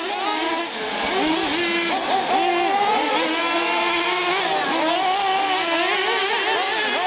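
Several 1/8-scale nitro R/C cars running laps, their small two-stroke engines revving up and dropping back over and over. Several high-pitched engine whines overlap, each rising and falling in pitch.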